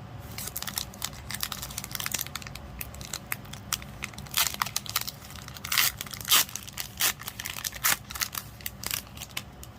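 Foil wrapper of a Pokémon booster pack being crinkled and torn open: a run of irregular crackles and rips, the loudest in the middle.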